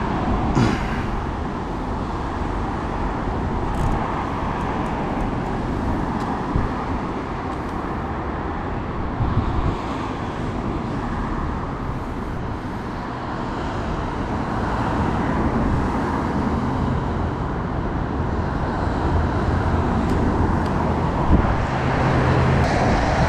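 Steady road traffic noise, a continuous rumble and hiss of passing cars. A low steady hum joins in after about fifteen seconds.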